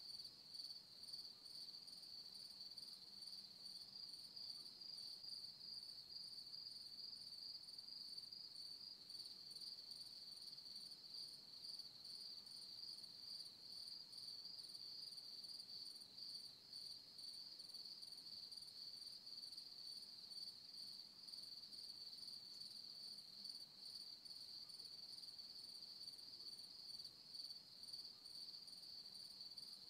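Faint, steady chorus of crickets: a continuous high-pitched trill that never breaks.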